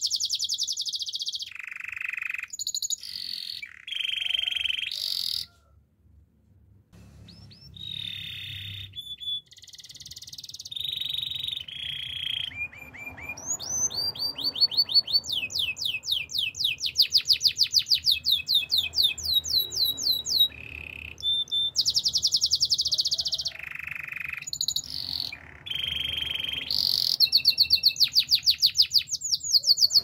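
Domestic canary singing a long, varied song of buzzy phrases and rapid trills of quickly repeated notes, with a brief pause about six seconds in.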